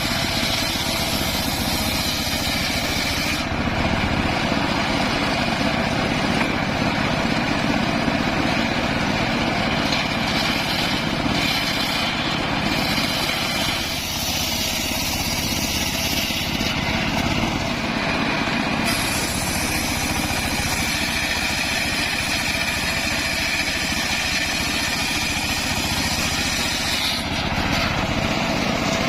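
Homemade engine-driven circular saw running steadily while cutting wood, with its high whine shifting several times as the load on the blade changes.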